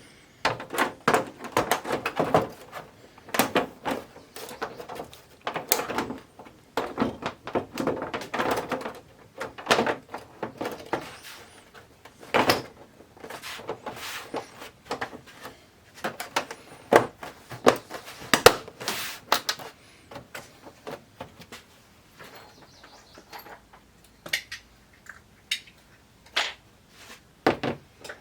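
Irregular clatter, knocks and clicks from handling the plastic and metal parts of a flat-screen TV while it is being reassembled, with softer rustling and sliding in between.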